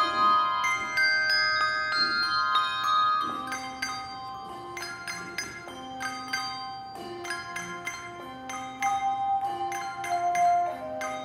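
Handbell choir playing, many bells struck together and left ringing in overlapping chords. After about three seconds the texture thins to a slower passage, with low bells alternating beneath single higher notes.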